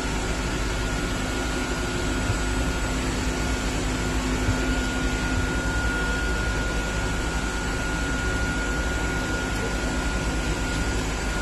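Steady drone of fans and running machinery, with a thin steady whine and a lower hum held through it and a few light clicks.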